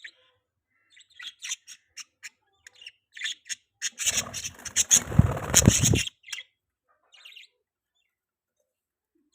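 Budgies chirping in short, high, repeated notes. In the middle comes a louder two-second stretch of chirping mixed with a low rumbling noise.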